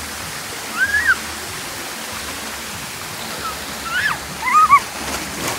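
Steady rush of water pouring down a pool water slide, with a few short, high-pitched rising-and-falling cries about a second in and again near the end.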